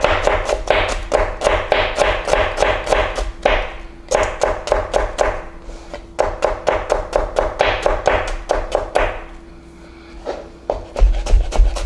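Kitchen knife rapidly chopping shallot on a cutting board: quick taps about five a second in three runs with short pauses between them, over background music.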